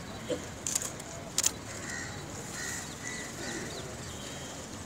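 Open-air ambience with a steady background hiss, two sharp clicks in the first second and a half, and short high chirps of small birds in the middle.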